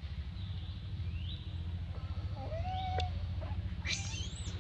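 Newborn long-tailed macaque crying: several short, thin squeals that glide upward, the loudest and highest near the end, over a low steady rumble.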